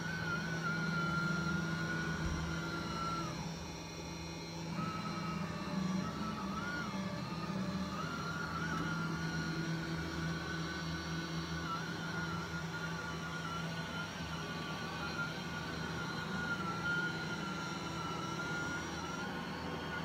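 LG Hom-Bot Square robot vacuum running on carpet: a steady high motor whine over a low hum. The whine drops out briefly about four seconds in, then resumes.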